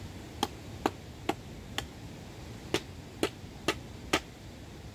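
Eight sharp blows in two runs of four, about two a second, with a pause of about a second between the runs, over a steady background hiss.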